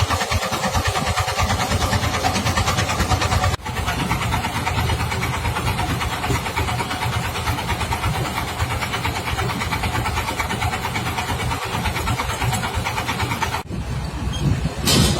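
Truck engine running steadily with a fast, even rumble, cut off abruptly twice, about a quarter of the way in and near the end, followed by a short louder burst.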